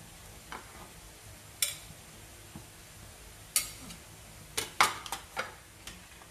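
Kitchen utensil clinking and tapping against a dish or bowl during egg-and-eggplant omelette preparation: about eight short, sharp, irregular clinks, the loudest cluster near the end.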